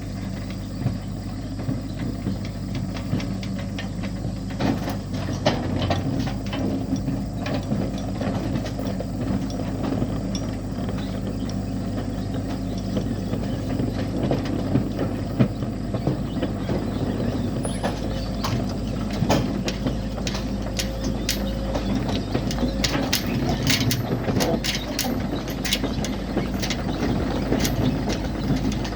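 Truck engine running steadily, with frequent metallic rattles and clicks on top that come thicker in the second half.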